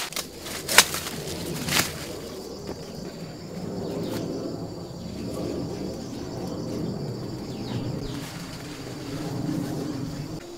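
Maize leaves and stalks rustling and crackling, with two sharp snaps in the first two seconds, then open-field ambience with a faint steady insect buzz.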